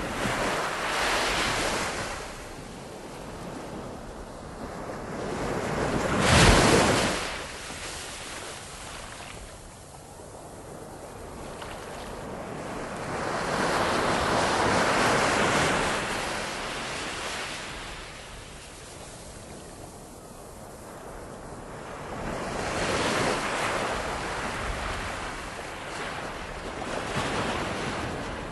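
Ocean surf: waves swelling and washing in every several seconds, with one louder crash about six seconds in.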